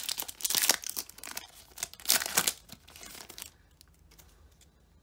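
Pokémon TCG booster pack's foil wrapper being torn open and crinkled by hand, with the loudest tears about half a second and two seconds in; the crackling stops about three and a half seconds in.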